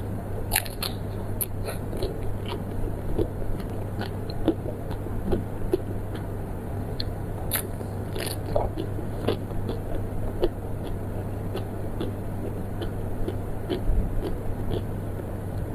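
A person biting and chewing crunchy food close to the microphone, with many sharp crackling crunches, over a steady low hum.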